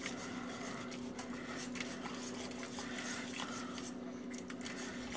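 Wire whisk stirring thick stew in a stainless steel pot, with faint scrapes and light clicks of the wires against the pot as roux is whisked in to thicken it. A steady low hum runs underneath.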